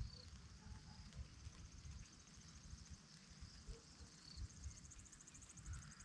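Faint open-meadow ambience: a low, gusty wind rumble on the microphone, a few faint bird chirps, and an insect trilling in rapid high pulses that grows clearer in the second half.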